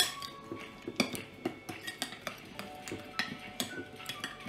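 Metal spoon clinking and scraping against a glass bowl while stirring a thick spice paste, a series of irregular clinks, the sharpest right at the start.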